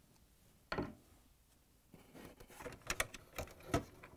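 Dishwasher electronic control board being pulled out of its plastic mounting frame: a single click under a second in, then a run of light plastic clicks and scraping in the second half.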